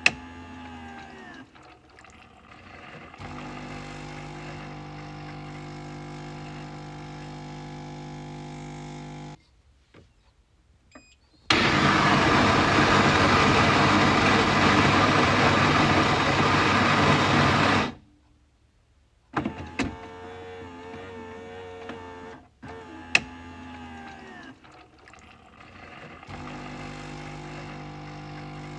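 Coffee machine running: a steady motor hum that stops and restarts several times, with a few sharp clicks. Near the middle comes a much louder, noisy stretch of about six seconds that cuts off abruptly.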